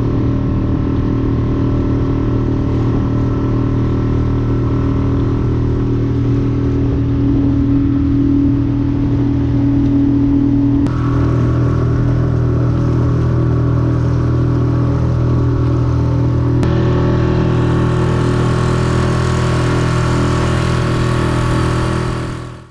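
An engine running steadily at an even speed, its low hum under a hiss of rushing air or water. The hiss changes abruptly twice, about eleven and seventeen seconds in, growing brighter each time.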